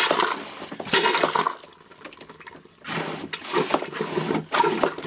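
A boat's marine toilet flushing, water rushing through the bowl in two spells with a short lull about two seconds in.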